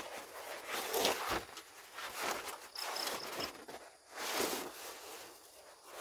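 Irregular rustling and scuffing in about four separate bursts, with a brief faint high tone about halfway through.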